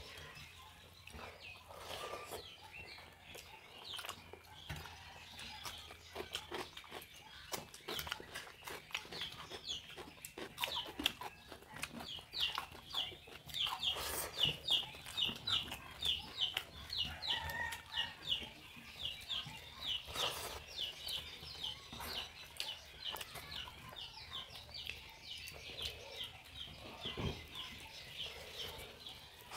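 Eating by hand from steel plates: small clicks of fingers and rice against the plates, with chewing. A bird calls in a long run of quick high chirps, about four a second, starting about nine seconds in.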